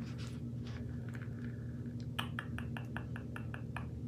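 Quiet room tone with a steady low hum. In the second half comes a quick run of faint, evenly spaced ticks, about five a second.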